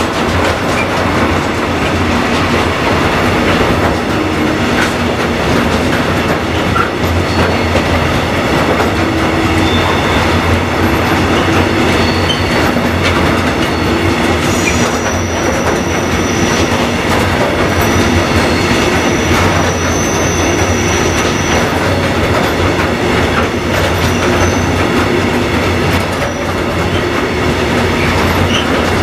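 Freight train of covered hopper wagons rolling past close by: a steady, loud clatter of steel wheels on the rails with regular clicks over the rail joints. A thin, high wheel squeal comes and goes in the second half.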